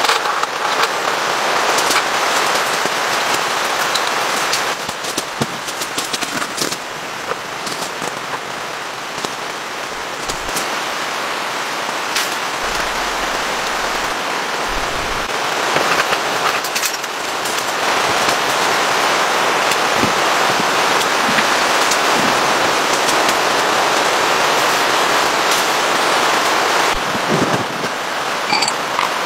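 Heavy rain falling on a tent canopy, a dense steady hiss, with scattered clicks and knocks of camping gear being handled throughout.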